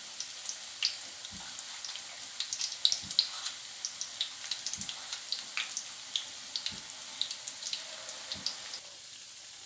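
Hush puppy batter frying in hot oil, a steady sizzle with many small sharp crackles, plus a few soft knocks about every one to two seconds.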